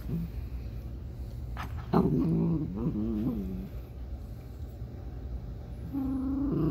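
Miniature Poodle giving a low growl in wavering, drawn-out grumbles about two seconds in, and again near the end. It is a protective warning to the owner, whom she thinks is hurting her sister while he cleans the other dog's ears.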